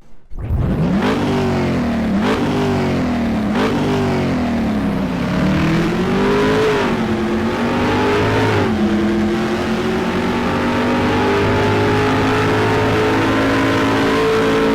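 A car engine revving, its pitch rising and falling several times in the first few seconds, then holding steady at a high pitch.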